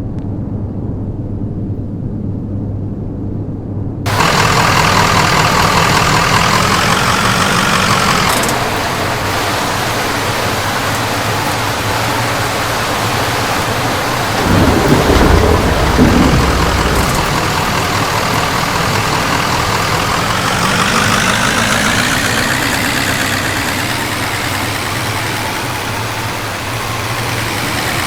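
A vehicle's engine idling, then heavy rain hitting the vehicle, which starts abruptly about four seconds in. A low thunder rumble swells about fifteen seconds in, and a wavering tone rises and falls above the rain.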